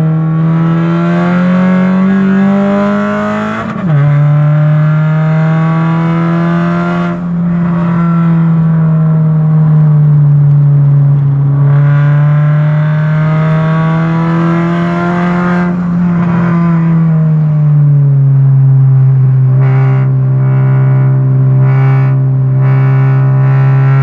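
Car engine heard from inside the cabin, running at high revs: the pitch climbs, drops sharply about four seconds in as it shifts up, then holds high with slow rises and falls, and settles lower a little past the middle.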